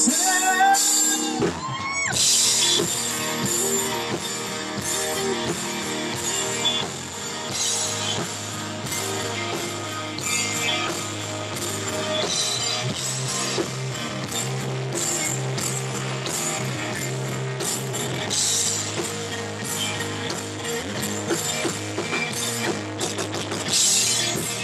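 Live rock band playing: electric guitars over a drum kit.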